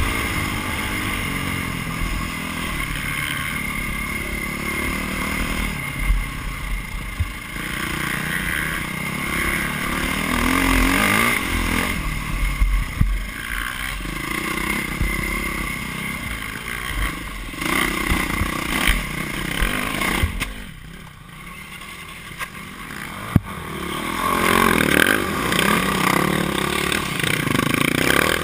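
Dirt bike engine under hard riding, revving up and falling back again and again as the throttle is worked, with knocks and rattles from the bike over rough ground. It eases off briefly about three-quarters through, with one sharp knock, then pulls hard again. Heard from a camera mounted on the bike.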